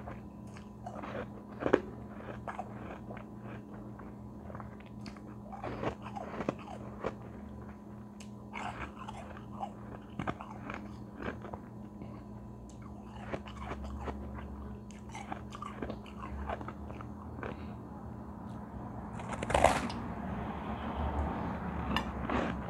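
Close-up biting and crunching into a white, frosty block of ice, with sharp crackling crunches throughout. A big, loud bite about three-quarters of the way through is followed by dense chewing crunches. A steady low electrical hum runs underneath.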